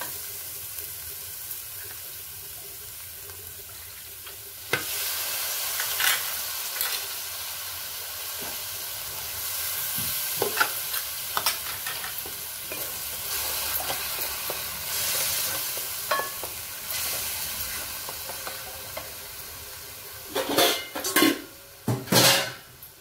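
Onion, garlic and red-chili masala frying in oil in a kadai, sizzling steadily while a wooden spatula stirs and scrapes it; the sizzle grows louder about five seconds in. A few loud knocks near the end.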